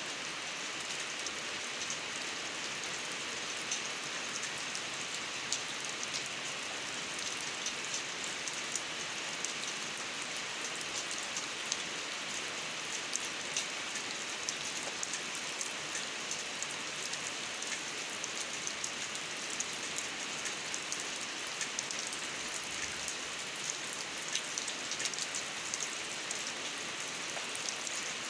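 Steady rain falling on a wet concrete drain and the grass beside it: an even hiss with many sharp, close drop hits.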